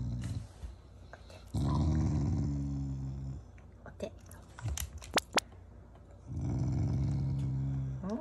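Black Shiba Inu growling in two long low rumbles, the first starting about a second and a half in and the second about six seconds in, with a few sharp clicks between them. It is a growl the owners know as affection, not anger.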